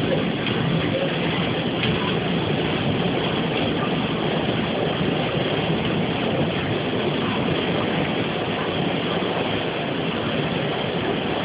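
Water rushing and churning into a canal lock chamber as the lock fills: a steady, unbroken rush.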